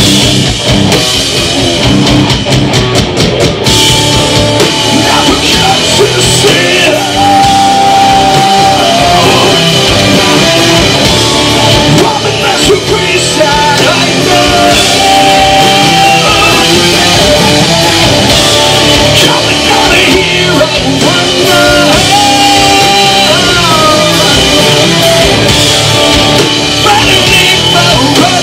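Live rock band playing loud: distorted electric guitars with held notes over a pounding drum kit, with fast drum strokes in the first few seconds.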